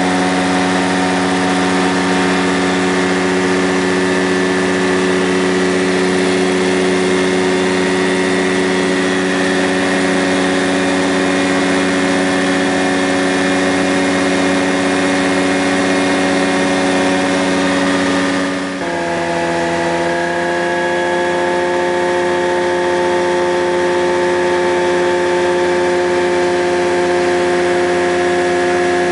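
Rans Coyote ultralight's engine and propeller running steadily in flight, heard from inside the open-sided cockpit. About nineteen seconds in the sound dips for a moment and the drone shifts abruptly to a different pitch, then runs steady again.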